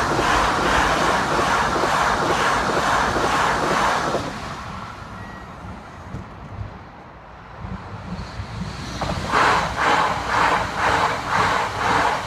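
Electric commuter train passing over a level crossing with a steady, regular clatter of wheels on the rails. It dies away about four seconds in. After a few quieter seconds, a second commuter train arrives and passes with the same beating clatter, about two beats a second.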